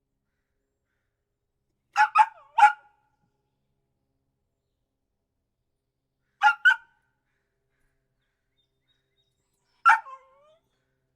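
Puppy barking in short, high barks: three quick barks about two seconds in, two more in the middle, and a single bark near the end that trails off with a short falling whine.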